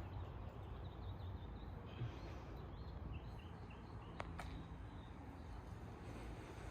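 Quiet outdoor background noise with a few faint bird chirps and two faint sharp clicks a little past the middle.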